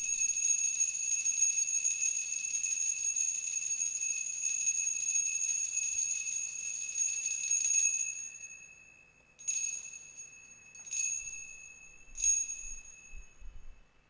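Altar bells rung continuously in a steady jingle while the chalice is held up at the consecration, then struck three separate times about a second and a half apart, each ring dying away. The bells mark the elevation of the chalice.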